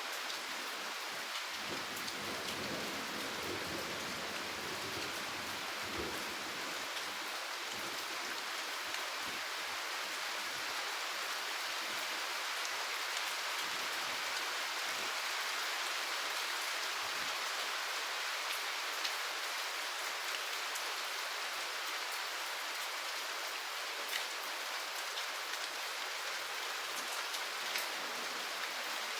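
Steady, heavy rain falling with a dense even hiss, scattered drops ticking on a surface. A soft low rumble sits under the rain for the first several seconds.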